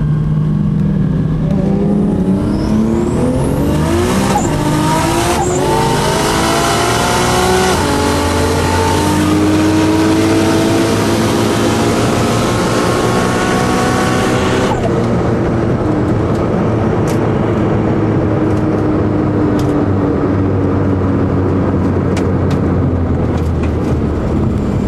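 Engine at full throttle in a street race, its pitch climbing and dropping back with each of several gear changes. About 15 seconds in the throttle closes suddenly, and a steadier, lower engine sound carries on.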